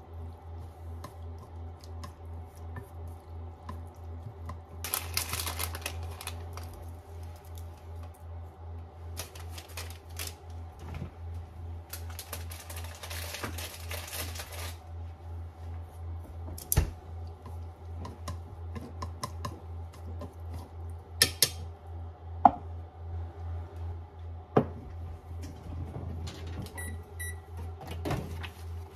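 Kitchen handling sounds: liquid seasonings poured into a pan in a few short spells, then scattered clicks and knocks of utensils and cookware being set down. Under it runs a steady low hum that pulses a couple of times a second, typical of an induction hob running at low power.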